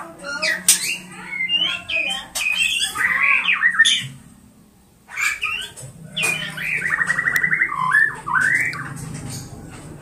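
Caged Oriental magpie-robin singing: a run of varied whistled and harsh squawky phrases, a short pause, then a fast buzzing trill about six and a half seconds in, followed by a few more notes.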